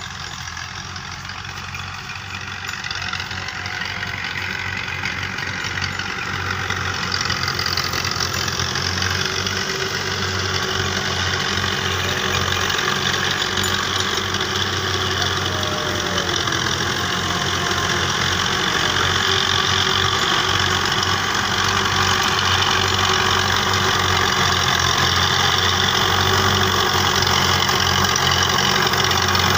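Fiat 640 tractor's diesel engine running under load as it pulls a cultivator through the field, growing steadily louder as it approaches.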